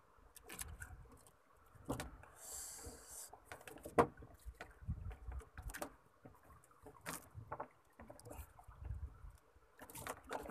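Handling noises while a freshly caught fish is dealt with: irregular clicks and knocks, a short hiss about two and a half seconds in, and low rumbles.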